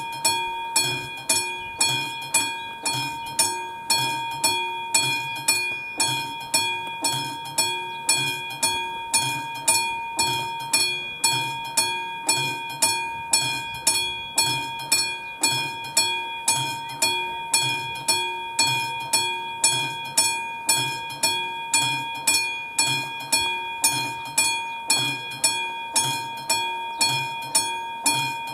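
Level-crossing warning bell on AŽD 71 signals, a classic mechanical bell, striking in a steady rhythm of about two strikes a second, each with a ringing tone. It rings with the flashing red lights to warn that a train is approaching.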